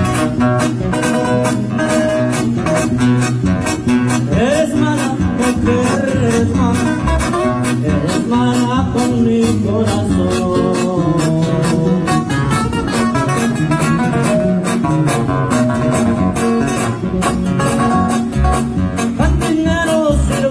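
A Mexican regional band playing live: acoustic guitars strummed over a steady beat from a drum kit.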